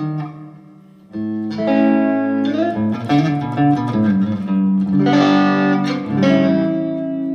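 Electric guitar played through a Valeton GP-200 modeller on its Vox amp patch, heard in the room through two Headrush 108 active monitors. Chords are strummed and left ringing with reverb on: one dies away, a new chord comes in about a second in, and more follow around five and six seconds.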